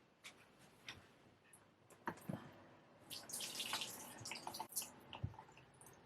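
Water running briefly from a tap, with scattered small clicks and knocks around it.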